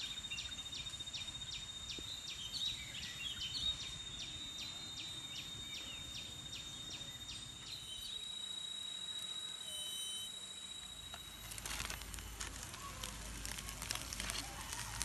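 Forest ambience: a high, steady insect drone pulsing about three times a second, with scattered bird calls, which stops about eight seconds in. From about eleven seconds a campfire crackles with small pops over a low rumble.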